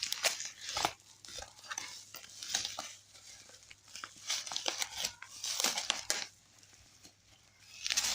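Plastic packaging being handled and opened: crinkling and rustling with scattered clicks and taps, pausing briefly near the end.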